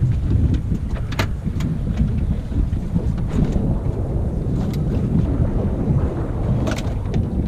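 Wind rumbling on the microphone aboard a small open boat at sea, with a few sharp knocks from handling at the open fish box.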